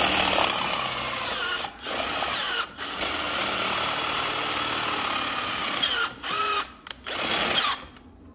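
Electric drill with a large bit boring through the thick aluminium of a bicycle frame, run in several bursts with brief stops between. At each stop and restart the whine falls and rises again.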